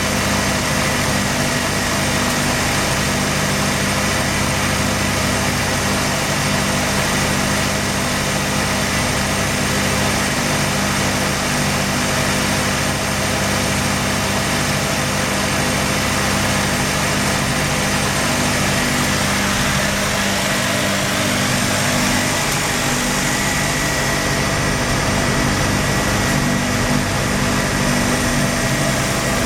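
Mazda RX-7 FD's twin-turbo 13B rotary engine idling steadily, an idle the owner calls rough and misfiring.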